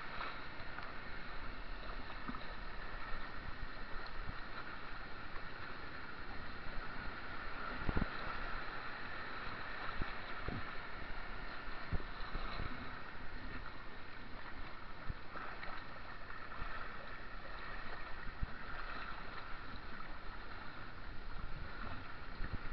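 Rushing, churning whitewater around a two-man slalom canoe heard from on board, with a few sharp knocks and splashes from paddle strokes.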